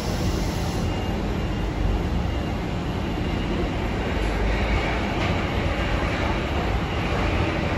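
Industrial machinery running steadily: a continuous rush and low rumble with no breaks or beats, typical of powder-handling workshop equipment in operation.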